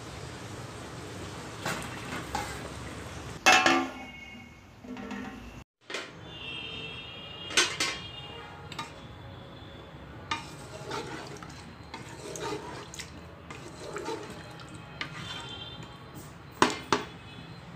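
Wooden spatula stirring thick curry in a metal pressure-cooker pot, scraping and knocking against the pot's side. Several sharp clanks ring briefly, the loudest a few seconds in, a little before halfway, and near the end.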